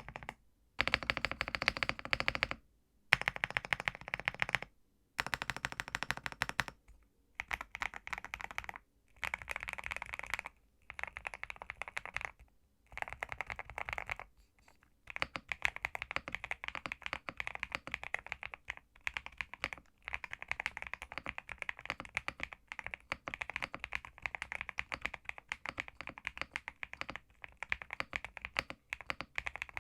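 Typing on a Zuoya GMK67 mechanical keyboard with Leobog Graywood V3 switches and SA profile keycaps. For the first half it comes in short runs of keystrokes split by brief silent gaps, then it turns to fast, unbroken typing from about halfway.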